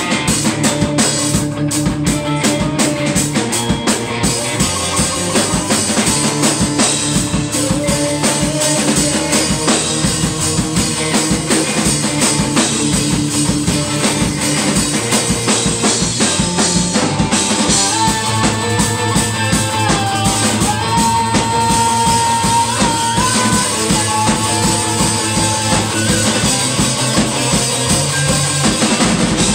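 Live rock band playing loudly on electric guitars, bass guitar and drum kit, with a steady drum beat. A held high note stands out for a few seconds past the middle.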